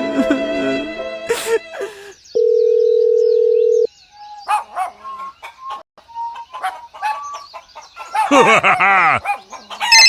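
A run of edited sound effects: music fading out, then a steady beep about a second and a half long, then short scattered chirps and clicks, and a loud wavering call near the end.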